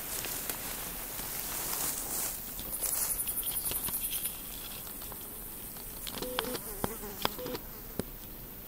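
High-pitched insect stridulation in a meadow: a rapid pulsed buzz for about a second and a half in the middle, over a steady high hiss of other singing insects. A few sharp clicks and rustles of grass against the microphone come near the end.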